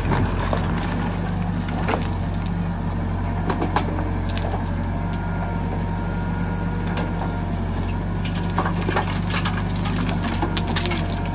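Case 770 backhoe loader's diesel engine running steadily under load as the backhoe digs into stony soil and swings the bucket over to a tractor trolley. Scattered crunching and clattering of stones and gravel against the bucket sit over the engine.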